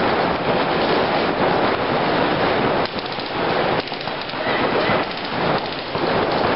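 Dense, rapid clatter of paintball markers firing, with paintballs smacking the inflatable bunkers and netting, and brief lulls about three and four seconds in.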